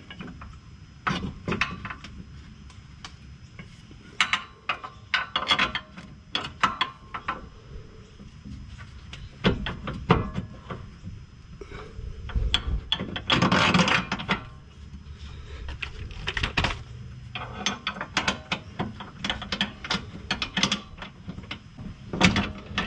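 Metal clicks, knocks and scrapes of a steel lower shock bolt, spacer and nut being worked into a sway-bar bracket by hand. The sounds come in scattered bursts, with a longer scraping stretch a little past halfway.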